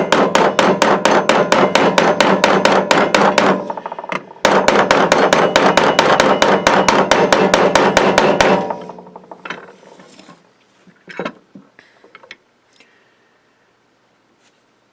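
Hammer tapping a punch in quick, even strikes, about five a second, driving the roll pin out of an AR-15 charging handle's latch on a bench block; each strike rings metallically. Two runs with a brief pause about four seconds in, stopping about nine seconds in, then a few light clicks.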